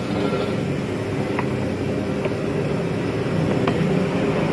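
Gas wok burner running with a steady low rumble under an empty steel wok, with a few light clicks.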